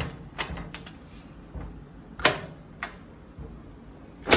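Key going into and turning in the backup key lock of a Moutec steel rifle safe: a few small metallic clicks, then a sharp clack about two seconds in and the loudest clack near the end as the lock releases and the door handle is worked.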